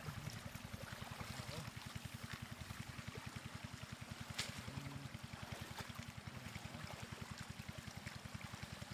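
Shallow flowing water trickling and splashing as a woven bamboo basket is worked through a flooded grassy channel to scoop out catfish, over a steady, fast, low throb.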